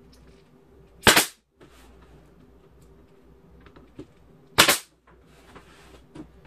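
DeWalt pneumatic finish nailer firing twice, about three and a half seconds apart, driving nails into wooden door trim: each a sharp crack with a short hiss of exhaust air.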